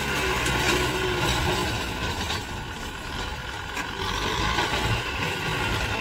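Kubota M6040 tractor's diesel engine running steadily under load while its front blade pushes soil. It dips in level about two seconds in and picks back up a second or so later.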